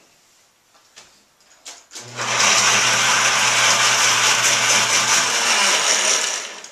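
Countertop blender motor switched on about two seconds in and running steadily for about four seconds, grinding pomegranate arils with a little water into pulp, then cutting off near the end. A few light knocks come before it starts.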